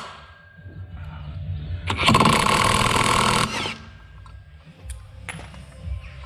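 A power tool runs in one loud burst of about a second and a half, about two seconds in, followed by a few light metallic clicks of tools being handled.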